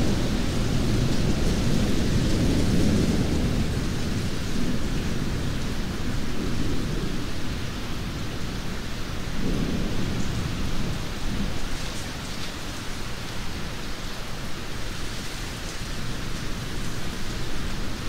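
Heavy rain falling steadily, with low thunder rumbles swelling in the first few seconds and again about ten seconds in.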